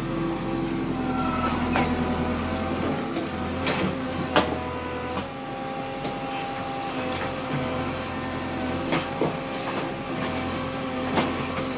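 Backhoe loader's diesel engine running steadily under digging work, with occasional sharp knocks and clanks.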